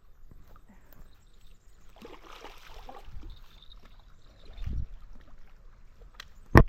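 Water splashing and sloshing as a hooked carp is brought in, with a low thud and then a sharp, loud knock near the end.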